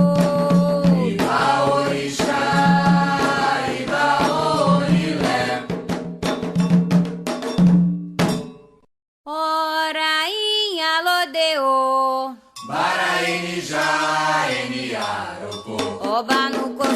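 Candomblé chant for Xangô: voices singing over percussion, with regular bell-like strikes. About halfway through, the sound cuts out for a moment and a lone voice sings unaccompanied for about three seconds before the singing and percussion return.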